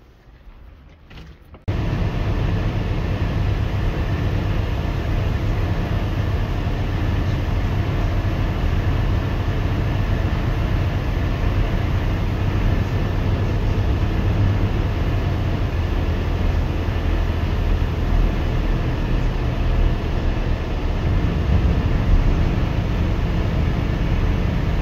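Wind buffeting a phone's microphone outdoors: a loud, steady rushing rumble, heaviest in the low end, that starts suddenly about two seconds in.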